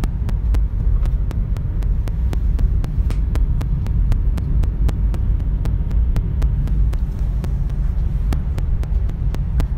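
Steady low rumble and hum of a moving passenger vehicle heard inside the cabin, with a run of faint rapid clicks throughout.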